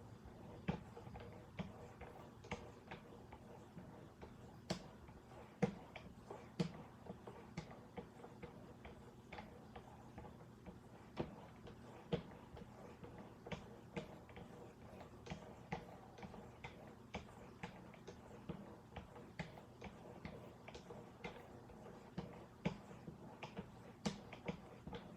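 Hand-held strops on a Wicked Edge guided-rod knife sharpener clicking against the knife's edge as they are stroked over alternate sides of the blade. The sharpest clicks come about once a second, with fainter ticks between.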